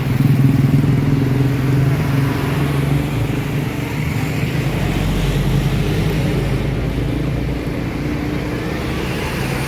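A motor vehicle's engine running with a steady low hum, loudest for the first three seconds and then easing off, over general traffic noise.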